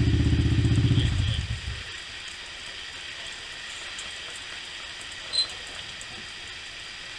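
Kerosene heater's battery-powered push-button igniter buzzing while the button is held, stopping about a second and a half in. A faint steady hiss follows, with one short sharp sound about five seconds in.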